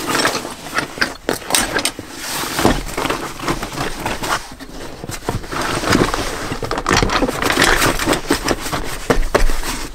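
A canvas tool bag being pushed and wedged into a foam-lined storage drawer: fabric rustling and scraping, with many short knocks throughout.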